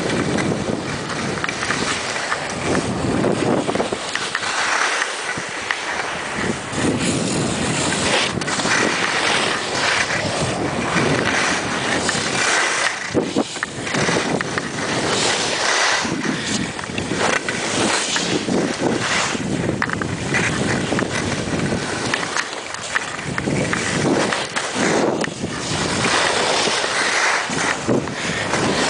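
Wind buffeting the microphone of a camera moving downhill on skis, mixed with the steady hiss and scrape of skis sliding over snow.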